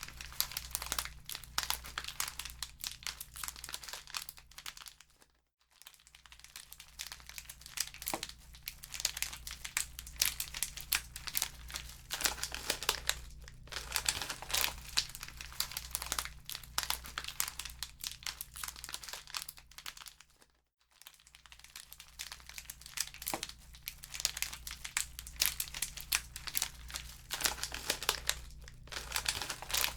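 Wood fire crackling in a fireplace: a dense, irregular run of sharp pops and snaps, broken by two brief drop-outs, about five seconds in and about twenty-one seconds in.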